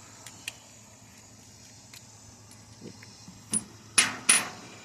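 Light metallic clicks, then three sharper metal clinks near the end, two with a brief high ring: hand tools and loose engine parts knocking together while the sheet-metal tin is taken off a Kohler V-twin mower engine.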